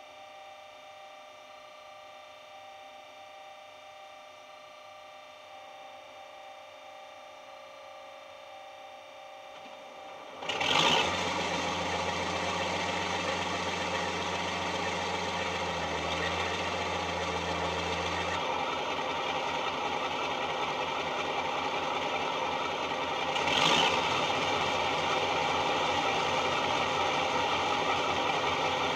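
Model-locomotive sound decoder playing an SWD Class 52 'Western' diesel-hydraulic sound file through a small EM2 speaker. A quiet steady hum for about ten seconds, then an engine starts with a sudden burst and settles to idle. Another start-up surge about thirteen seconds later leaves it running louder, as the second of the loco's two engines starts.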